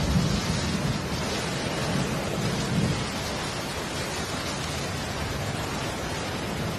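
Steady rain hiss with a low rumble, the rumble strongest in the first three seconds.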